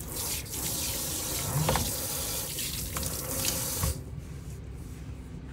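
Kitchen faucet spraying water into a stainless steel sink, with a few low knocks. The water is shut off suddenly about four seconds in.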